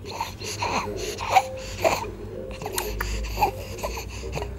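Six-week-old baby making several short, pitched vocal sounds, roughly a second apart.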